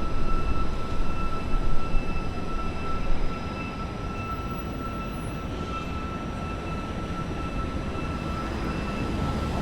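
Night-time city ambience: a dense low rumble, louder for the first three seconds or so and then steadier, with a faint steady high-pitched whine throughout.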